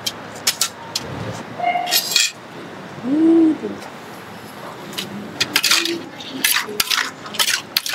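Utensils clinking and knocking against an earthenware mortar as boiled chicken feet are tossed into a spicy Thai salad, with a quick run of knocks in the second half. A short rising-and-falling hum comes about three seconds in.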